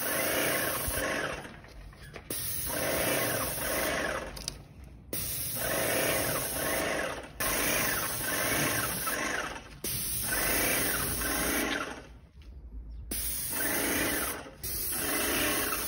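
Airless paint sprayer spraying paint in repeated passes of about two seconds each, its pump running and the spray hissing, each pass starting and stopping sharply as the gun trigger is pulled and released.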